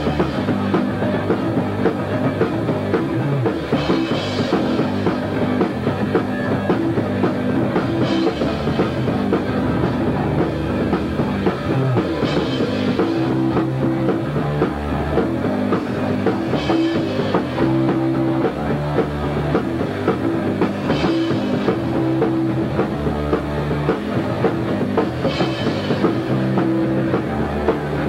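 Punk rock band playing loud: guitars and bass over a drum kit, with a cymbal crash about every four seconds, and a singer shouting into the microphone.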